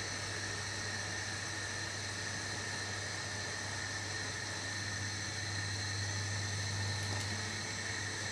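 Steady, even hiss with a low hum underneath: the background noise of the stove where a saucepan of pork is boiling.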